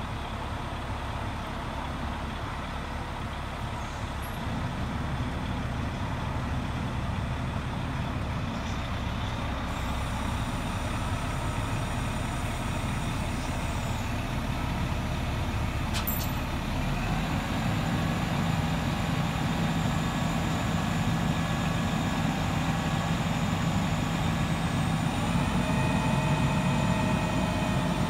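Diesel engine of a truck-mounted crane running under load as the crane lifts a steel pole, its sound slowly growing louder, with steady higher tones from the engine and hydraulics stepping in a little past halfway and again near the end.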